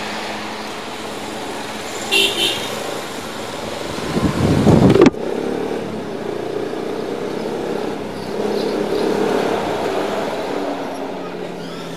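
Street traffic heard from a moving motorcycle. A short horn toot comes about two seconds in, and a loud rising rush of noise cuts off suddenly about five seconds in. After that the motorcycle runs steadily along the road with traffic around it.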